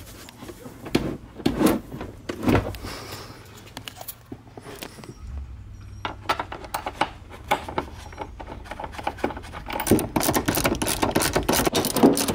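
Hand ratchet with a socket and extension tightening the seat bracket bolts: the pawl clicks in scattered short runs, turning to fast, steady clicking about ten seconds in.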